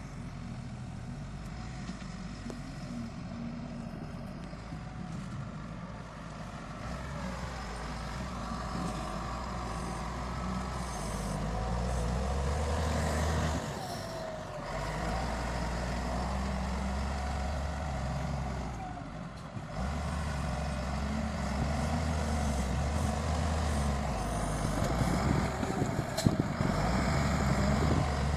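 Heavy diesel machinery engine running steadily, with two short dips in the sound about 14 and 20 seconds in.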